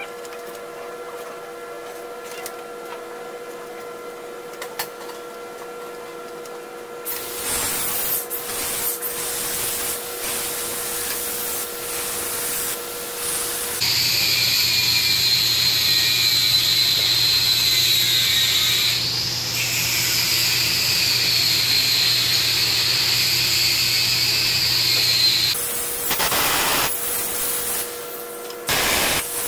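Compressed-air tool on a hose running: short bursts of hissing air, then a loud, steady hiss with a wavering high whine for about ten seconds in the middle, then more short bursts near the end.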